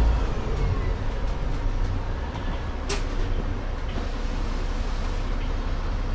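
Inside an Alexander Dennis Enviro 500 double-decker bus, its Mercedes-Benz OM936 straight-six diesel with Voith automatic gearbox is running with a steady low rumble. A whine falls in pitch over the first two seconds, and there is one sharp click about three seconds in.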